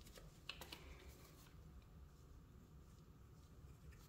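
Near silence: room tone, with a few faint small clicks in the first second and a half as small pistol parts are handled.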